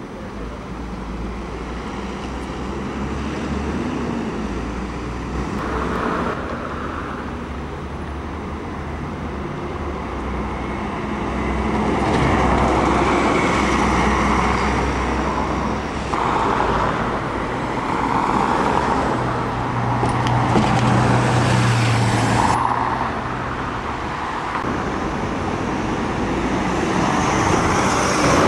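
Diesel engines of Alexander Dennis Enviro400 double-decker buses running and pulling away, with road traffic. The noise swells and eases as the buses move off and pass.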